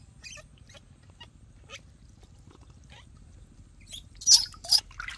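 Newborn baby monkey crying while being bathed: a few faint short whimpers, then two sharp, high-pitched squeals about four seconds in.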